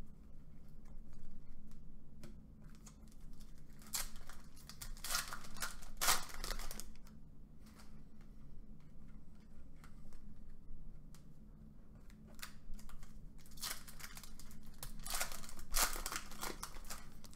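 Trading-card pack wrapper crinkling and tearing as it is ripped open by hand, together with the rustle of cards being slid through. The noise comes in bursts, clustered around a few seconds in and again near the end.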